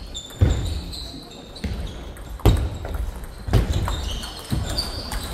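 Table tennis ball knocking sharply off bat and table, about one knock a second, with brief high squeaks in between.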